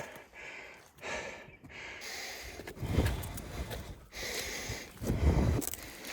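A person breathing hard, with several noisy breaths in and out about a second apart and a low rumble under two of them.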